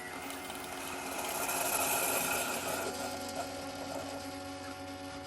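Mini Keurig single-serve coffee maker brewing: its pump runs steadily while hot water hisses and sputters through the K-cup. The hiss swells about two seconds in.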